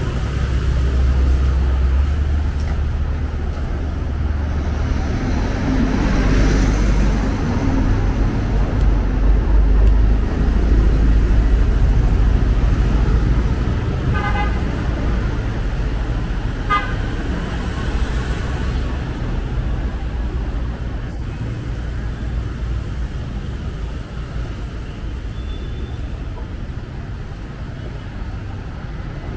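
Street traffic of motorbikes and cars passing with a steady low rumble, heaviest in the first third. A horn honks briefly twice, a couple of seconds apart, around the middle.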